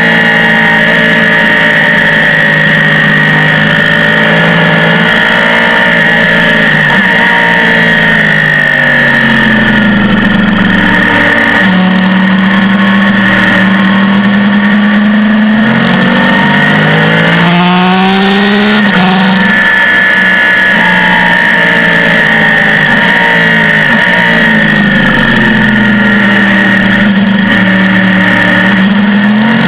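Sport motorcycle engine at racing speed, recorded on the bike. The engine note drops and climbs again several times as the bike slows for corners and accelerates out, over a steady rush of wind noise.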